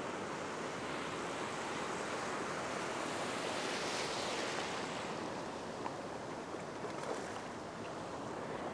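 Small surf breaking and washing through shallow water, a wave's wash swelling to its loudest about four seconds in.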